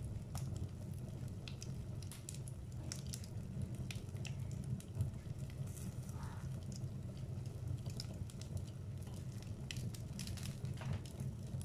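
Wood fire burning in a fireplace: a steady low rush of flame with irregular crackles and pops from the burning logs.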